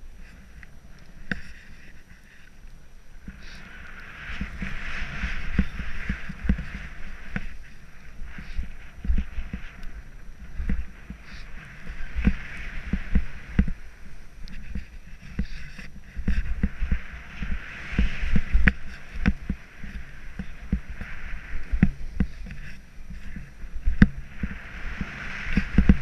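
Snowboard riding through powder snow: a hiss that swells and fades with each turn, over low thumps and wind rumble on the microphone. Quieter at first, louder from about four seconds in.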